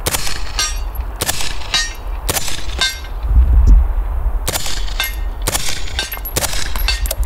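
Suppressed SIG MCX Rattler firing subsonic rounds at steel targets, about six shots a second or so apart. Each muffled shot is followed about half a second later by the ringing clang of the bullet hitting steel. A low rumble of wind on the microphone fills a pause partway through.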